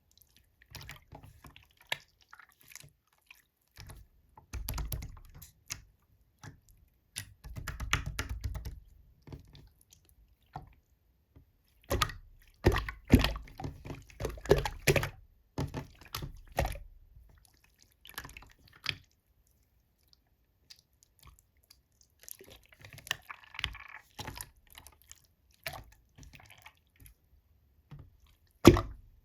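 Slime being squeezed, pressed and folded by hand, giving irregular bursts of sticky clicks, crackles and squelches with short pauses between.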